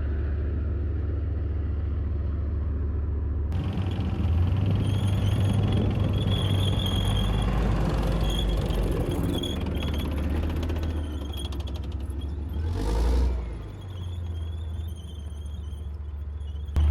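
Heavy vehicle engine running with a steady low drone and a thin high whine that comes and goes, with a short swell in level about two-thirds of the way through.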